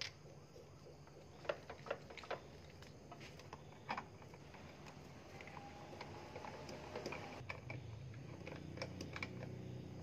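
Irregular light clicks and taps from small parts and hand tools being handled as automotive relays are mounted on a small bracket, over a faint steady hum.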